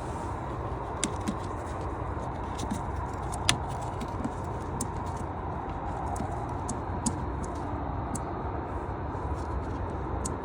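Scattered light clicks and taps of plastic engine-bay cover pieces and clips being handled and pulled free, the sharpest about three and a half seconds in, over a steady low background hum.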